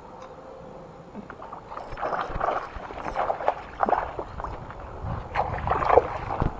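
Irregular water splashing close by as a hooked largemouth bass thrashes at the surface while it is reeled in to the bank, starting about two seconds in and growing louder.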